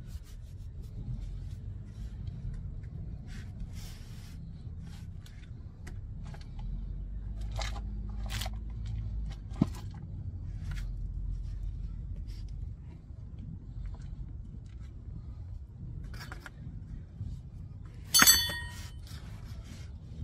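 Faint scraping and rustling of rubber and plastic wrap as a steering rack bellows boot is worked by hand over a wrapped tie rod end, over a low steady rumble. A sharp click comes about a third of the way in, and a louder metallic clink with a brief ring comes near the end.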